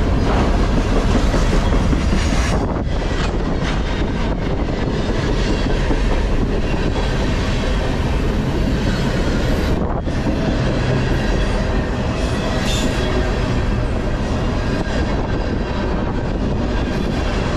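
CSX freight train's container flatcars rolling past close by: steady noise of steel wheels on the rails, with a run of clatter a few seconds in.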